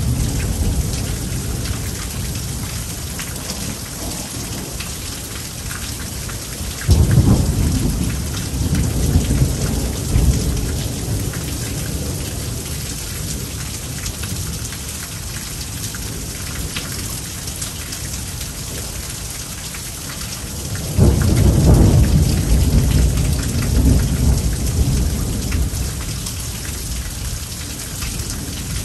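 Heavy rain falling steadily in a thunderstorm, with two peals of thunder: one breaking suddenly about seven seconds in, the other about twenty-one seconds in, each rumbling on for several seconds.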